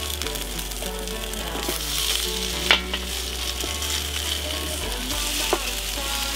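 Beef patties sizzling and frying on a hot electric grill plate, with sharp clacks of a utensil against the plate about a third of the way in and again near the end. Background music runs underneath.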